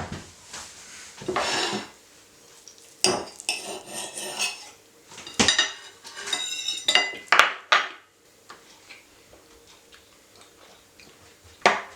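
Cutlery and dishes clattering and clinking in irregular bursts for the first eight seconds, some clinks ringing briefly, then a single sharp clink near the end.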